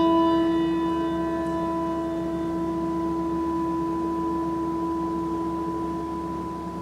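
A bell on a staff rings after a single stroke, marking a departed member's name in a memorial roll call. Its clear steady tone slowly fades, and the fainter higher overtones die away first.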